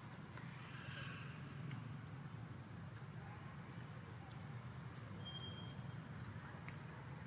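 Faint outdoor background: a steady low hum, with short high chirps repeating every half second or so and a few sharp ticks.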